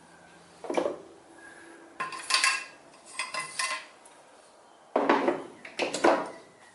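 Metal parts of a homemade reflux still clinking and clattering together as they are handled and taken apart, in about five short bursts with brief metallic ringing.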